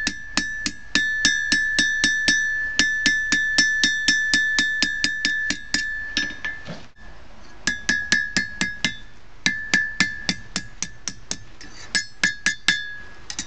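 Blacksmith's hammer forging hot steel on an anvil: quick, steady blows about four or five a second, each with a ringing anvil tone. The hammering breaks off briefly about six seconds in, then resumes in short runs.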